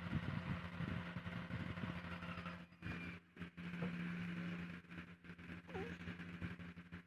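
A faint, steady motor hum.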